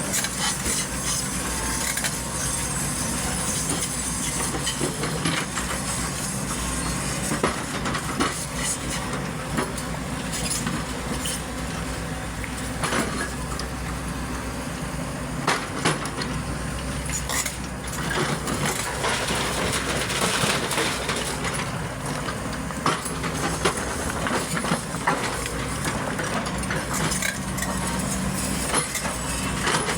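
XCMG excavator's diesel engine running steadily while loading, with scattered metallic clinks and knocks throughout.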